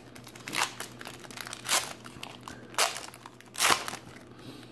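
Foil wrapper of a 2017 Panini Prizm retail card pack crinkling and tearing as it is ripped open by hand, in several short bursts.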